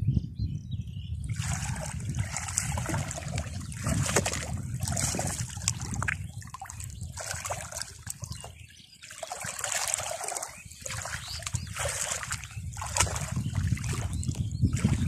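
Hands splashing and sloshing in shallow muddy water while groping through the mud, in irregular spells with a short lull about nine seconds in.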